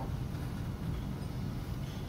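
Steady low rumble of room tone in a conference hall, with faint hiss and no distinct events.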